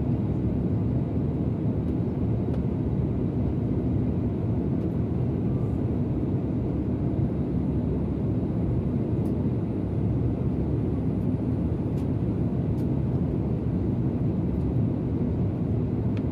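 Steady low noise inside an airliner cabin in flight: engine and airflow noise heard from a window seat, even in level and without change.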